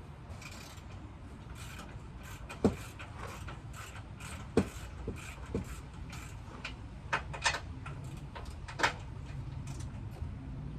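Hand tools and metal parts being worked on a pickup truck's front end: a handful of sharp metallic clinks and knocks, two louder ones about a third and halfway in, with light scraping over a steady low hum.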